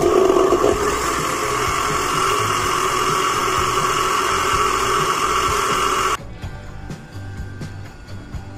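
Electric countertop blender motor running steadily as it purées dragon fruit with eggs and condensed milk, then cutting off suddenly about six seconds in.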